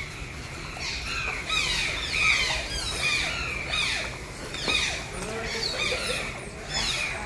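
Otters giving repeated high-pitched squeaky chirps, short falling calls that come several at a time throughout.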